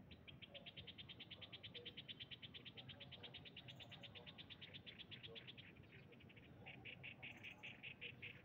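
Faint, high-pitched pulsed trill of a small calling animal, about ten even pulses a second. About six seconds in it breaks off briefly, then resumes with slower, stronger pulses.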